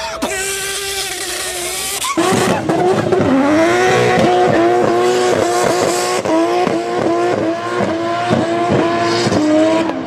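A person imitating a race car engine with their voice. A shorter imitation in the first two seconds is followed by a louder run of quick rising pitches, over and over, like an engine revving up through gear after gear.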